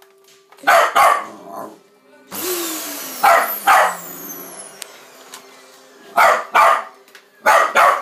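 A small dog barks at a vacuum cleaner, sharp barks in pairs, four pairs in all. About two seconds in, the upright vacuum cleaner is switched on: its motor whirs up in pitch, then runs under the barking.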